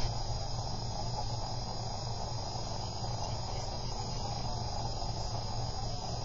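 Steady, unchanging hiss with a low hum underneath and a faint constant high whine: room tone and microphone noise picked up by a home security camera.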